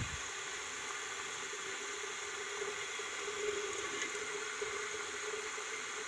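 Tap water running steadily into a whistling kettle, filling it.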